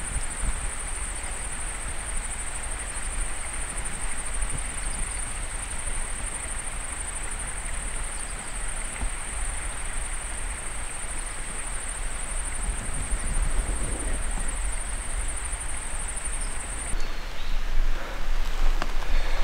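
A steady, high-pitched chorus of insects, over wind rumbling on the microphone. The insect chorus stops suddenly about 17 seconds in, and near the end footsteps and rustling through undergrowth take over.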